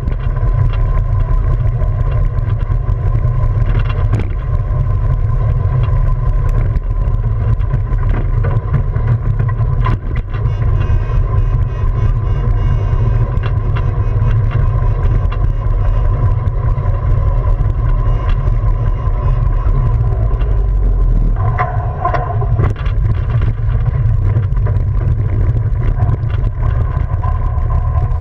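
Onboard sound of an unpowered soapbox cart rolling downhill on asphalt: a steady, loud low rumble from the wheels and wind buffeting the camera microphone, with a faint steady whine and occasional rattles.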